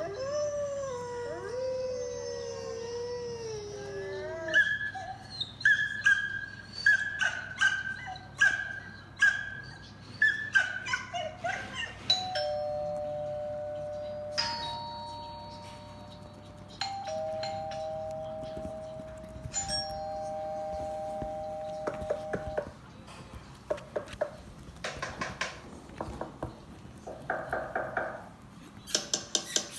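A dog howl that wavers in pitch, then a run of short sharp barks about one a second. Then a doorbell plays several ding-dong chimes, each two notes held for two or three seconds, and short yelps and clicks follow near the end.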